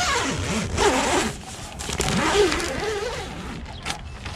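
A zipper drawn in two long strokes, the second starting about two seconds in.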